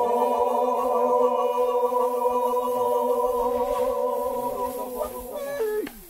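A long sung note held steadily at one pitch for nearly six seconds, breaking off near the end.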